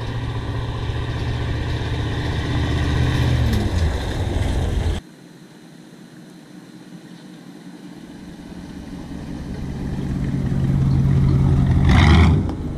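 A 1978 Chevy C20 pickup's 350 V8 driving past twice. The engine grows louder and drops in pitch as the truck goes by about four seconds in, then cuts off suddenly. A second, quieter approach builds to its loudest near the end as the truck passes again.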